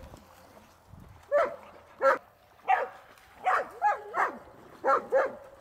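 Dog barking repeatedly, about eight short barks over four seconds, beginning about a second in.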